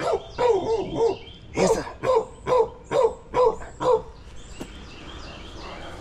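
Dog barking repeatedly, about two barks a second, stopping about four seconds in.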